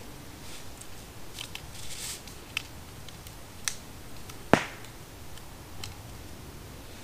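Rustling and handling noises with several short sharp snaps or clicks, the loudest a single crack about four and a half seconds in.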